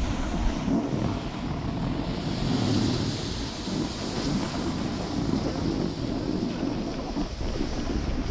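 Wind buffeting a GoPro's microphone during a snowboard run, mixed with the steady hiss and scrape of a snowboard sliding over packed snow.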